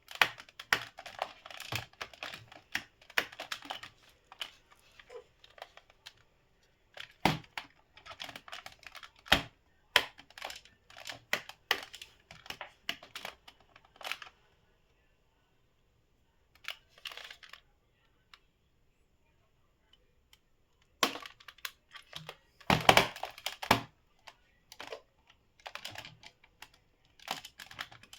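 A screwdriver and hands working on the plastic housing of an electric mosquito racket, making irregular sharp clicks, taps and scrapes. There is a quiet pause of several seconds in the middle and a louder cluster of clicks near the end.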